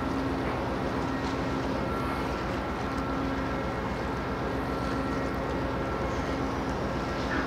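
Steady low rumble of the container RO-RO ship Urizun 21's engine as it heads straight in, with a steady hum over it that comes and goes.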